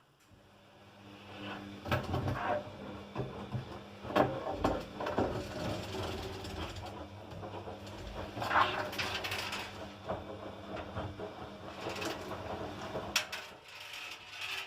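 Tumble dryer running, its drum turning with a steady motor hum under irregular clicks and knocks. It is the noise of a drum-rotation fault, but here it is caused by two seeds caught in the drum.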